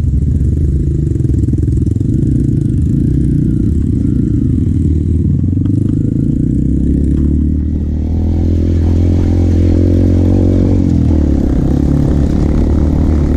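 Trail motorcycle engine running while riding, its pitch climbing about eight seconds in and dropping back a little before the end.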